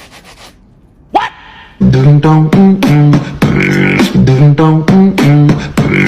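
Vocal music with a beatboxed rhythm, starting loudly about two seconds in, after a short quiet stretch with a single click.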